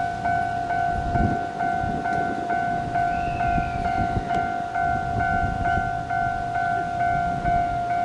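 Japanese railway level-crossing alarm ringing: an electronic two-tone bell repeating evenly about twice a second. Underneath it is the low rumble of a Shizuoka Railway A3000-series electric train approaching.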